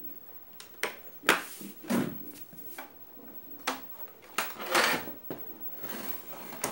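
Knocks, rattles and scrapes of a CRT television's plastic chassis and circuit board being handled and tipped over, in a string of short clattering sounds with a longer scrape about five seconds in.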